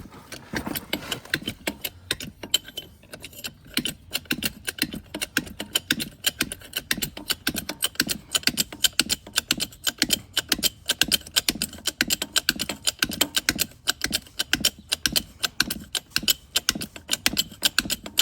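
Jack being worked to lift the tractor: a fast, even run of sharp mechanical clicks with a deeper pulse about twice a second, one for each stroke.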